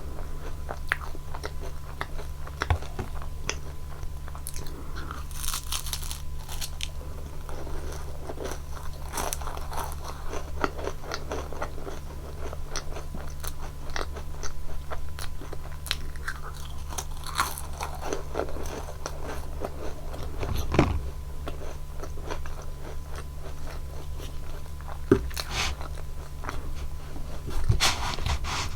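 Close-up biting and chewing of Nunettine flaky puff-pastry biscuits with whipped cream: repeated crisp crunches and crackles as the layers break, with wetter chewing between bites.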